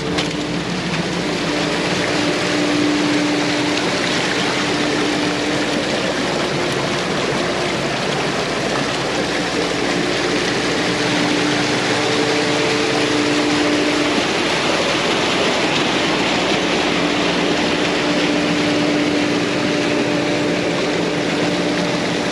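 Water rushing steadily through a freshly cut breach in an earthen pond dam as the pond drains. A steady engine hum sits underneath, fading in and out.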